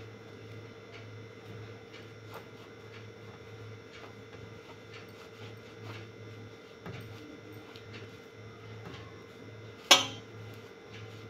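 Quiet handling of a damp cloth being folded and worked in the hands, with faint scattered clicks over a steady hum. About ten seconds in, one sharp, loud knock.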